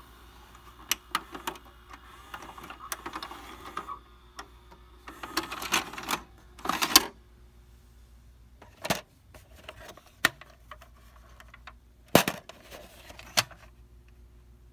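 Sharp plastic clicks and clatter from a VCR and a VHS cassette being handled, a few louder knocks among lighter ticks.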